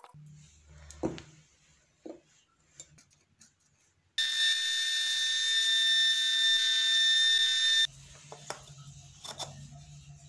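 Bench drill press boring into a wooden block with a wide flat-bottomed bit: a loud, steady high whine for about three and a half seconds, starting about four seconds in. Before and after it there is only a low motor hum with small clicks.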